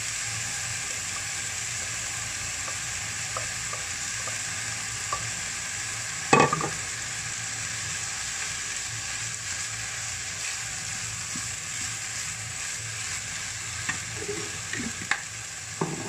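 Kimchi fried rice sizzling in a non-stick frying pan while a wooden spatula stirs and scrapes through it. A loud knock about six seconds in and a few lighter knocks near the end.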